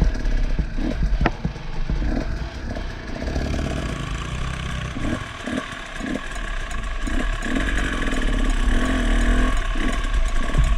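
Off-road dirt bike engine running and revving up and down, with scattered knocks.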